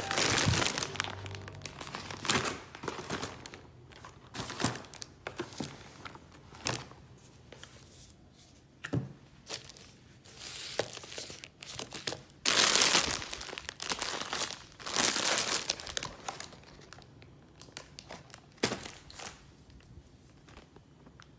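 Plastic food packaging crinkling and rustling as grocery items are handled, in irregular bursts, with a few knocks as items are set down.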